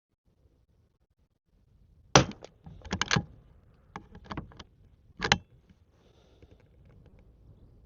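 Henry lever-action .22 rifle firing standard-velocity .22 LR: a sharp crack about two seconds in, then a run of metallic clicks and clacks as the lever is worked. A second sharp crack follows about five seconds in.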